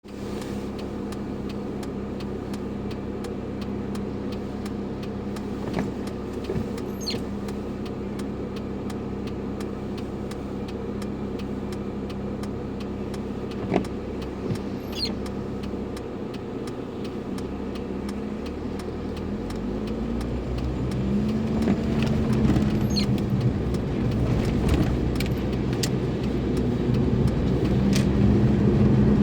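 Car driving: steady engine hum and road noise, with the engine note rising and growing louder as the car speeds up in the last third. A few brief high squeaks cut through now and then.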